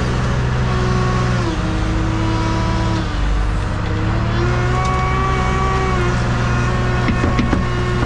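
Loader's diesel engine working its hydraulics as the bucket lifts and tips dung into a muck spreader: the revs dip about a second and a half in, climb again and hold, then drop near the end, with a few clunks as the load comes out of the bucket.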